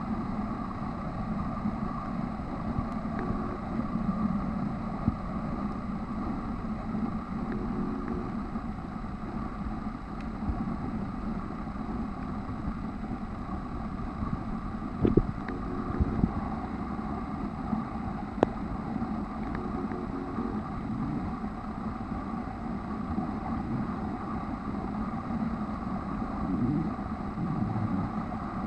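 Steady, muffled underwater noise picked up by a camera filming below the surface, with a few faint clicks a little past halfway.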